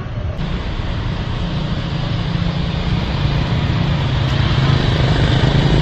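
Road traffic: vehicle engines running steadily with a low hum and road noise, growing gradually louder.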